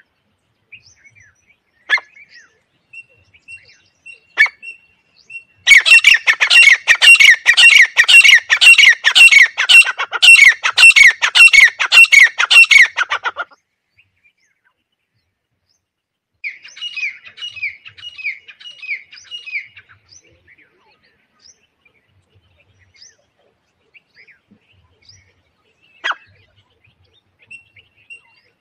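Francolin (teetar) calling: a loud, rapid string of repeated calls lasting about eight seconds, then a shorter, fainter string a few seconds later, with a few single chirps scattered around them.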